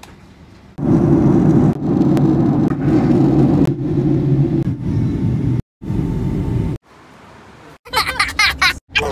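Steady low rumble of a jet airliner in flight, heard from inside the cabin, cut into short clips. Near the end a young girl laughs in a moving car.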